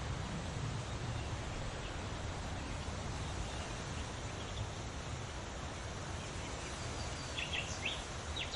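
Nature ambience: a steady rushing hiss with a few short bird chirps, most of them bunched together near the end.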